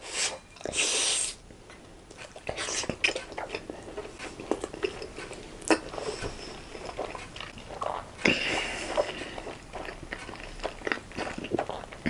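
Close-miked eating of steamed chicken momos: irregular wet biting and chewing mouth sounds with many small clicks. There are two short hissy bursts, about a second in and again about two-thirds of the way through.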